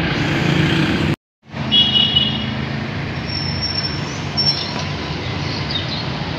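Steady road traffic noise, with a short dropout about a second in.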